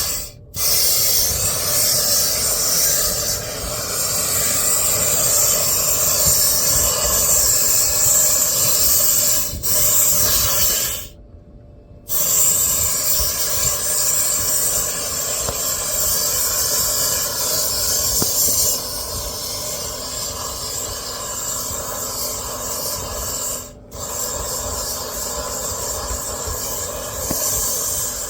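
Compressed air hissing out of a reverse sweep hose, its rear-facing jets driving the hose up the dryer vent and blowing lint back toward the opening. It is a loud, steady rush that cuts out briefly a few times, once for about a second near the middle.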